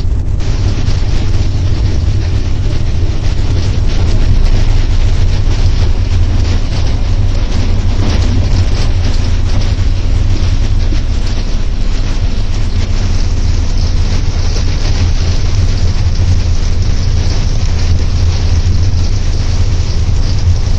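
EP07 electric locomotive under way, heard from inside the driver's cab: a steady low hum under a loud, even rushing noise of the running train.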